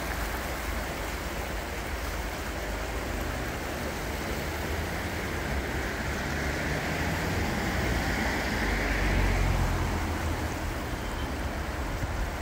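Floodwater of the swollen River Wye rushing steadily past, a continuous hiss with a low rumble underneath, growing louder for a couple of seconds about eight to ten seconds in.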